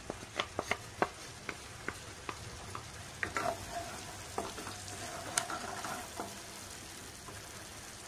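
Wooden spatula stirring mashed jackfruit pulp in a nonstick pan, tapping and scraping against the pan, over a light sizzle of the pulp frying in ghee. The taps come irregularly and die away after about six seconds, leaving the faint sizzle.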